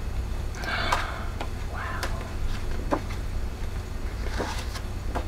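Sheets of a 6x6 scrapbook paper pad turned by hand: a few soft paper rustles and light taps, over a steady low hum.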